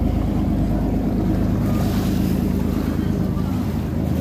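A boat's engine running with a steady low drone, under wind on the microphone and waves.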